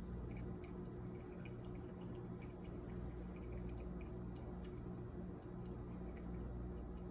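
Coffee dripping from the Bodum pour-over's stainless steel mesh filter into its glass carafe, heard as many faint, irregular little ticks and drips over a steady low hum.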